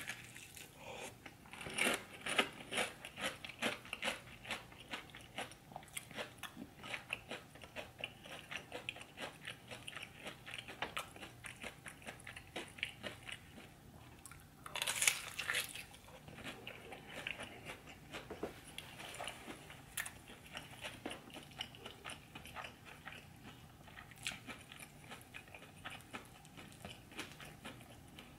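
A person chewing and biting food close to the microphone: a steady run of small wet mouth clicks and crunches, with one louder bite about halfway through.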